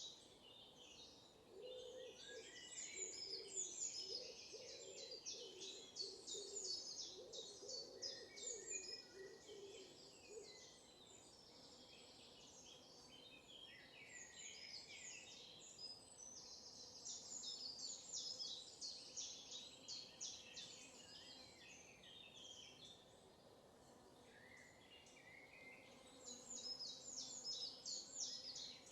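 Faint birdsong: small birds chirping and trilling in clusters of short high notes, with pauses between the clusters. During the first ten seconds or so a lower call repeats under the chirps.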